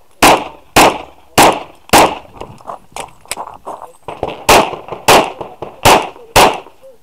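Glock 34 9mm pistol firing rapidly: four shots about half a second apart, then a pause of about two seconds with small clicks and knocks, then five more shots at the same quick pace.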